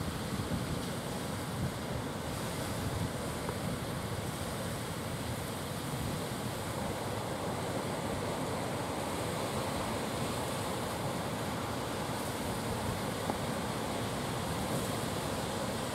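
Rough sea surf breaking and washing in a steady rush, with wind buffeting the microphone in small gusts.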